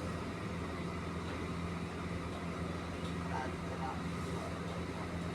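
A steady low machine hum, with a few faint short sounds about three and a half seconds in.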